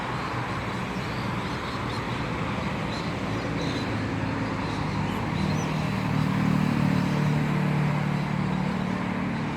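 Steady outdoor background noise with a low rumble that swells about five seconds in and eases again near the end.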